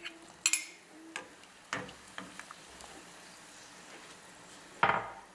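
Light kitchen handling at a saucepan: a few sharp clicks and taps from the measuring cup and utensils against the pot, then a louder metallic clank with a short ring near the end.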